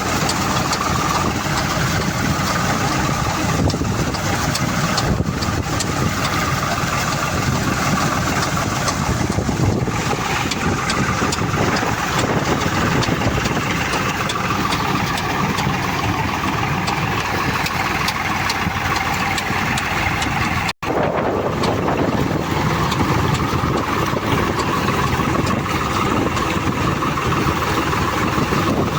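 An engine running steadily at an even speed, with one momentary break in the sound about three-quarters of the way through.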